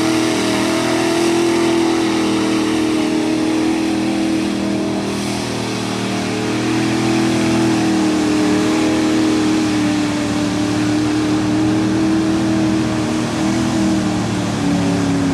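Big-block Chevy V8 in a mud truck revving hard and held at high revs as its tyres churn through deep mud, the truck nearly stuck. The engine note stays nearly steady, sinking slowly in pitch over the last few seconds.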